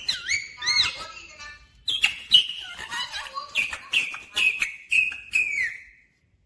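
Rose-ringed parakeet calling: a few whistled calls that swoop up and down in the first second and a half, then a run of shorter, higher calls that stops about six seconds in.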